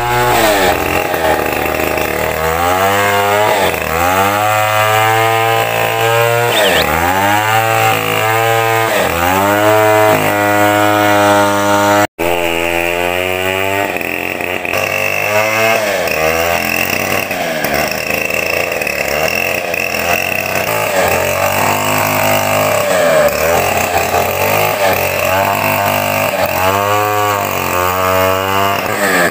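Two-stroke chainsaw running and revving over and over, its pitch rising and falling as it cuts into an oil palm trunk, with a momentary cut-out about twelve seconds in.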